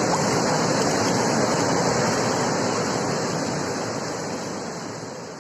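Floodwater rushing down a swollen river, a loud, steady wash of water noise that slowly fades out over the last couple of seconds.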